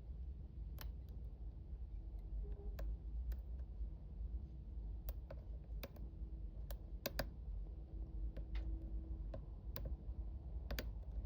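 Hook pick working the pin stack of a padlock held in a vice during single-pin picking: light, irregularly spaced clicks and ticks as pins are lifted and set, over a low steady hum.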